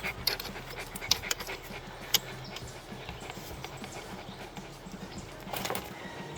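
A dog panting, with a few light clicks of small metal parts such as washers and a castle nut being handled.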